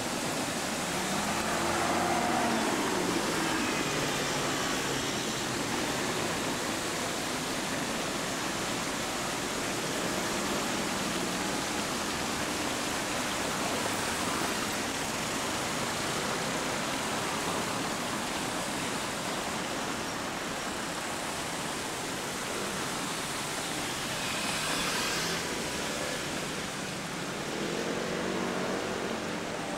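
Steady rush of a large fountain's falling water mixed with city street traffic: cars and motor scooters passing, their engines rising and falling in pitch about a second in and again near the end.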